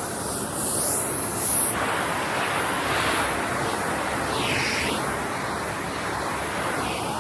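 Henry canister vacuum cleaner running with its nozzle working over sofa upholstery: a steady rushing suction hiss whose pitch and strength shift every second or two as the nozzle seals against and lifts off the fabric.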